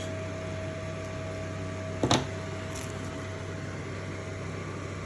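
A steady mechanical hum with a constant whine, and a single short knock about two seconds in.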